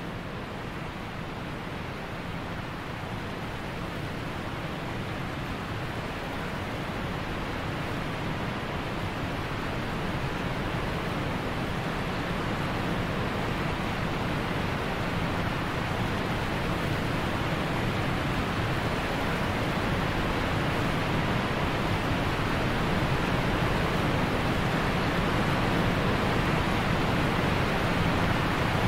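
Steady rushing of running water, a waterfall or mountain stream, growing gradually louder.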